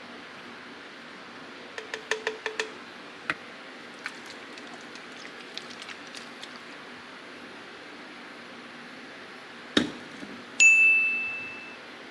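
Small clicks and taps in a quick cluster, then scattered ticks, over a steady hiss. Near the end comes one louder knock, then a bright ding that rings for about a second and fades.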